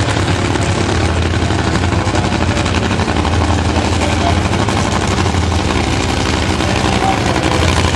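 Top Fuel dragster's supercharged nitromethane V8 running at idle, a steady loud rapid-fire crackle.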